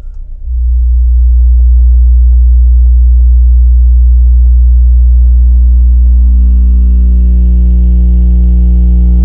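Kenwood KFC-W112S 12-inch subwoofer in a bass-reflex box playing a steady 60 Hz sine test tone for an SPL measurement. It gets much louder about half a second in as the amplifier power is turned up, and harsher overtones build in from about six seconds on.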